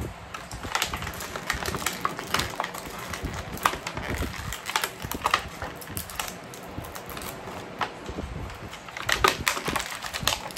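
Clear plastic action-figure packaging tray being handled: irregular crackles and clicks as accessories are worked out of it, with a denser flurry near the end.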